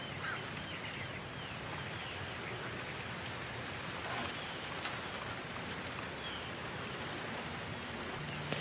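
Steady outdoor background hiss with a few faint high chirps.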